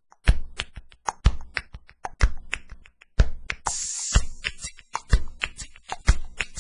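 Closing music with a dry percussive beat, sharp knocking strikes about three a second, and a brief hissing swell about halfway through.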